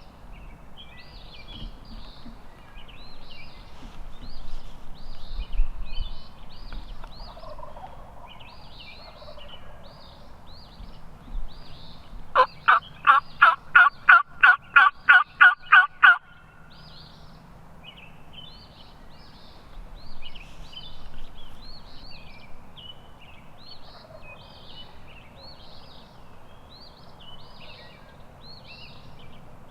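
A series of about a dozen loud, evenly spaced turkey yelps, about three a second for some four seconds, starting a little before the middle. Small songbirds chirp all the way through.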